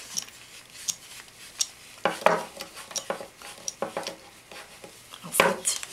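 Parts of a needlepoint frame being handled and fitted together: a crossbar end being worked into a hole in the side bar. Scattered knocks, clicks and scraping, with louder knocks about two seconds in and again near the end.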